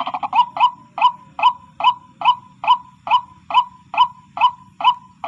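White-breasted waterhen (ruak-ruak) calling: a steady series of short, sharp notes, a little over two a second.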